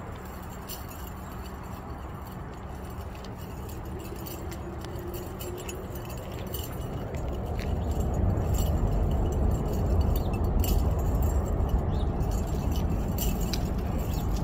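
Small metal tags on chains clinking and jangling as they are handled, over a low rumble that grows louder about halfway through.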